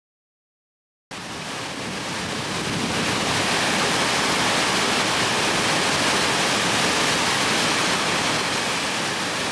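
Waterfall at Pyoutan Falls: a steady rush of falling water. It fades in about a second in and grows louder over the next two seconds.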